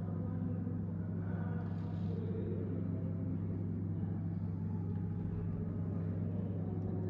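A steady low hum over a constant rumble, even in level with no breaks.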